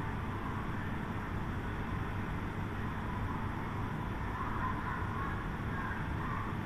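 Steady low rumble of airport apron noise from jet aircraft and ground service vehicles.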